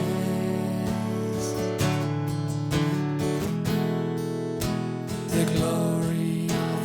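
Acoustic guitar strumming the chords of a worship song, a steady rhythmic accompaniment with no clear singing.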